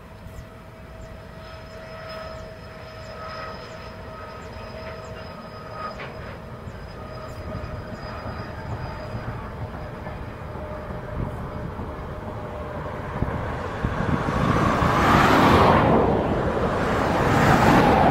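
Freight train of car-carrier wagons rolling past on the rails. A faint steady tone fades away over the first dozen seconds, then the rolling noise grows louder, swelling twice near the end.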